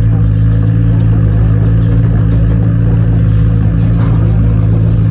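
Toyota Supra Mk4's 2JZ inline-six engine running loudly at a steady speed through its exhaust, with an even, unchanging note.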